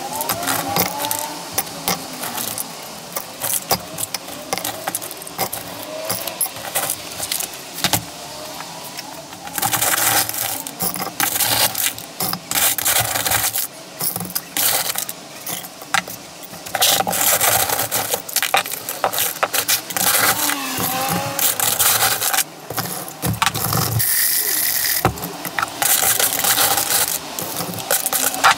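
Small pieces of metal slag and dross clinking and clattering as they are handled, many sharp knocks in irregular succession, with several longer stretches of rasping scraping.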